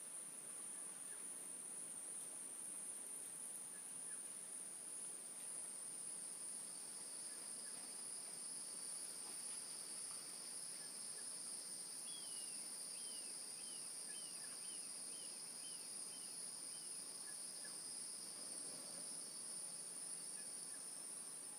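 Insect chorus: a steady, high-pitched shrill drone, joined about four seconds in by a second, slightly lower steady trill. Midway a bird gives a run of about eight short falling whistled notes, and faint short chirps recur throughout.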